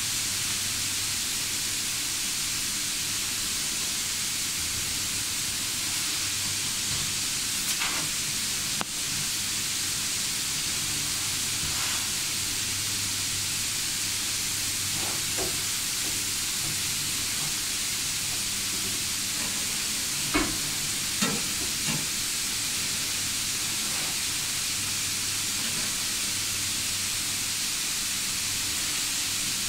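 Steady hiss with a low hum underneath, and a few light clicks and knocks of metal parts being handled, about a third and two thirds of the way through.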